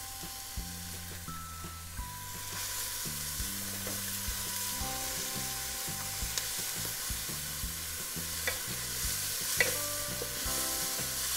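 Chopped onion sizzling in oil in a wide aluminium pot while a wooden spatula stirs and scrapes it, as the onion is softened. The sizzle grows louder a couple of seconds in.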